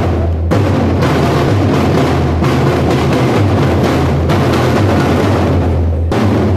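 A children's drum corps beating silver marching snare drums together, a loud, continuous drumming with a heavy low rumble underneath.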